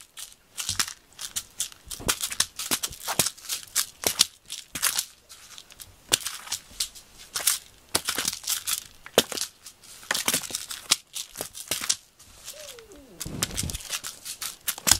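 A cat scratching and tearing at a corrugated cardboard scratcher bed: a quick, irregular run of crunching, crinkling scrapes.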